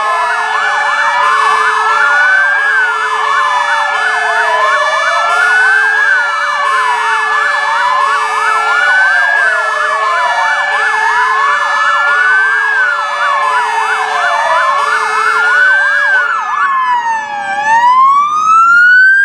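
A chorus of fire engine sirens sounding at once: several sirens overlapping in slow wails and fast yelps, over steady tones and an alternating two-tone pattern. About 17 s in most of them stop, and a single siren drops in pitch and then climbs again, loudest near the end. This is the fire service's traditional joint siren-and-horn salute for newly handed-over fire engines.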